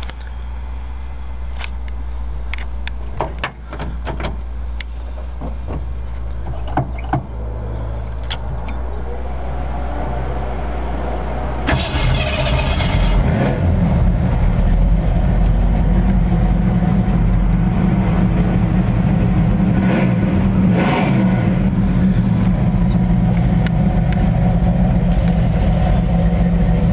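A classic car's engine is started with the ignition key: scattered clicks over a low hum, then about twelve seconds in the engine catches and runs steadily, idling.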